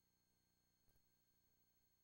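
Near silence: a faint steady hum with one faint click about a second in.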